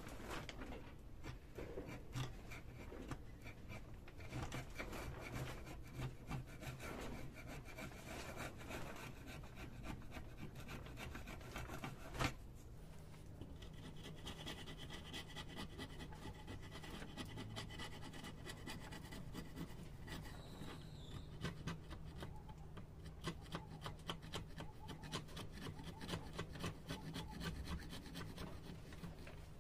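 Steel chisel scraping rust and caked dirt off the metal body of an old bubble level, in rapid, continuous strokes.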